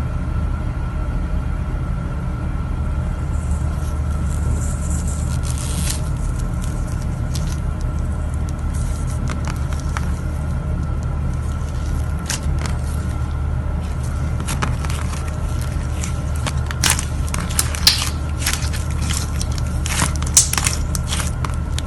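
Slime being squeezed and crushed by hand, giving scattered crackles and pops that come more often in the second half. A steady low hum lies underneath.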